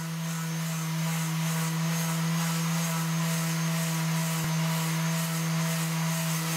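Electric finishing sander running at a steady speed, its pad sanding a 3D-printed plastic sword blade: an even motor hum over the hiss of the abrasive.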